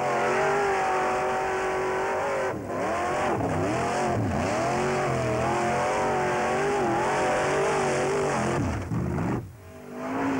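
Formula-offroad buggy's engine revving hard, its pitch rising and falling as the throttle is worked on a steep dirt hill climb. Near the end the engine note drops away sharply and a steadier engine sound follows.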